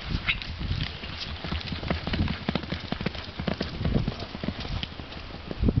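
Hoofbeats of a horse loping on a sand-and-dirt arena while weaving through poles: a quick, uneven run of dull thuds.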